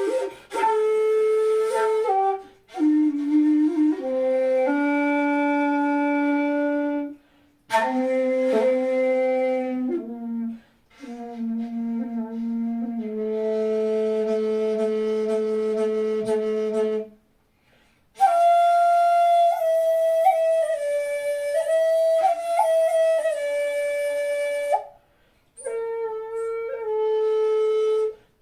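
Jinashi shakuhachi, a 2.4 (two shaku four sun) bamboo flute pitched in A, played solo. It plays long held notes with audible breath noise, in several phrases separated by short pauses for breath, reaching down to its low A.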